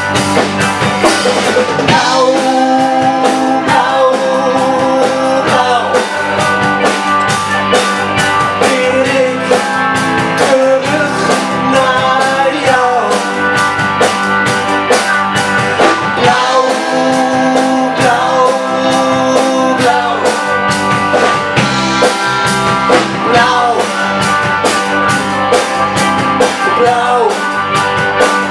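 Live band playing a mid-tempo rock number: electric guitars, electric bass and drum kit, with a woman's voice singing the melody at times.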